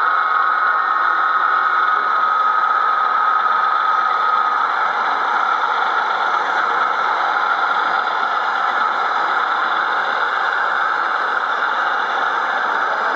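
Model diesel locomotive running with engine sound from its sound unit: a steady whine that stops about four and a half seconds in, then a steady engine hum.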